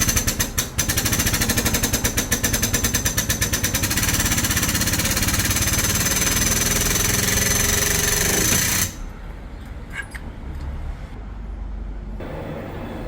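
A machine with a rapid mechanical hammering rattle for about four seconds, going over into a loud steady hiss with a high whine that cuts off suddenly about nine seconds in, leaving a quieter low rumble with a few faint clicks.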